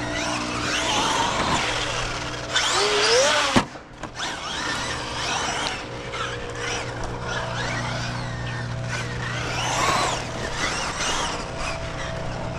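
Traxxas Maxx Slash RC truck's brushless electric motor whining and changing pitch as it is throttled over dirt jumps, with a rising rev about three seconds in. The sound breaks off abruptly about halfway through the fourth second, then carries on.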